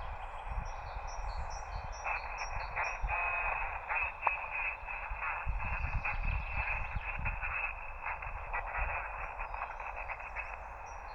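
LAB599 TX-500 transceiver receiving single-sideband: steady band-noise hiss, with faint garbled sideband signals and interference breaking in from about two seconds in while no station answers. Short high bird chirps repeat in the background near the start and again near the end.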